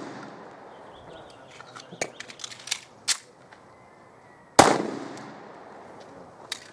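A single handgun shot about four and a half seconds in, sharp and loud, with an echoing tail that slowly fades. Before it come a few fainter sharp cracks, and the tail of an earlier shot is still dying away at the start.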